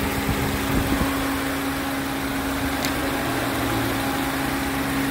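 2019 Subaru Outback's 2.5-litre four-cylinder boxer engine idling with the hood open: a steady, even hum.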